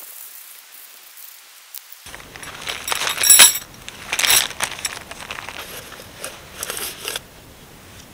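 Clear plastic bag crinkling and rustling as it is handled, in irregular bursts that start about two seconds in and stop about a second before the end, the loudest a little before the middle.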